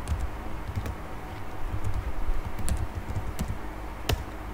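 Computer keyboard keystrokes typing a password at an su prompt: a handful of irregular key clicks, with a sharper, louder keystroke near the end.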